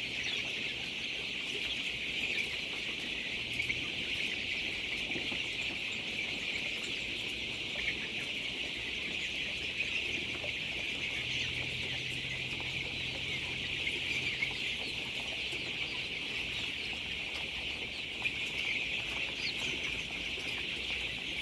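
A large flock of poultry making a dense, steady chorus of clucking and peeping calls.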